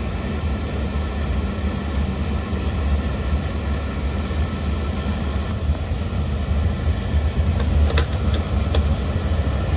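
Oil burner running steadily, a low even rumble from its motor, blower and flame, with its fuel pump just set to 140 psi. Two short sharp clicks sound near the end.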